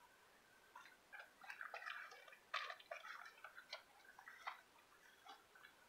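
Near silence with faint, scattered light clicks and taps from a person handling an airsoft gun and moving close to the microphone.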